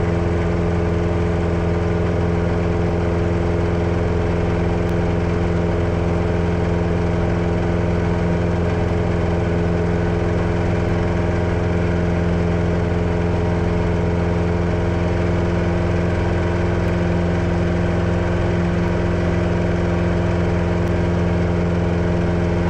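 Grumman AA-5-series light airplane's piston engine running steadily at low power, its pitch holding constant.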